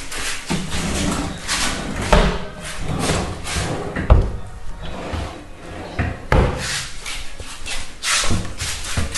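Wooden kitchen cabinet doors and drawers being opened and shut, with several sharp knocks as they close, about two, four and six seconds in.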